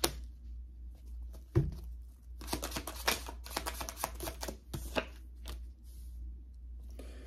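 Tarot cards being shuffled and handled by hand: a run of quick papery clicks for a couple of seconds in the middle, with a thump about a second and a half in.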